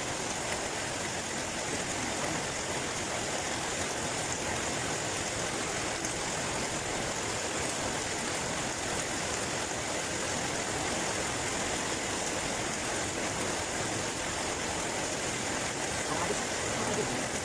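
Steady rain, an even rushing hiss that holds without change.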